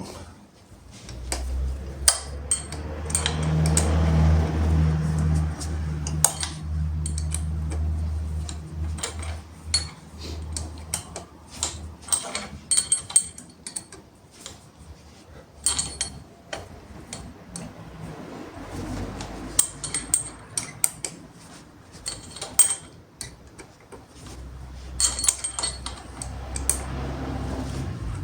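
Metal clinks, taps and clatter of tools and parts being handled during repair work on a mobility scooter. A steady low electric motor hum runs for several seconds near the start, and again for several seconds near the end.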